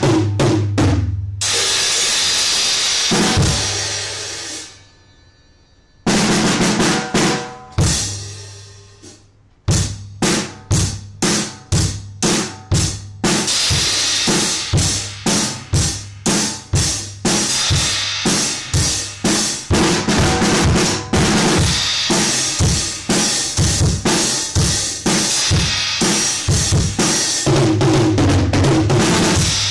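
Pearl acoustic drum kit being played. After a few quick hits, a cymbal is struck and left to ring out and fade, twice. From about a third of the way in, a steady beat follows on kick drum, snare and cymbals.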